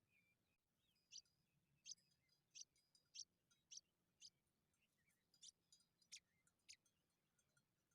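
A faint series of about ten short, sharp, high chip notes or clicks, irregularly spaced, from a small bird.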